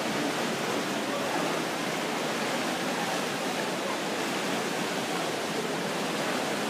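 Spectators cheering and shouting steadily during a swimming race, blending into one continuous, even din.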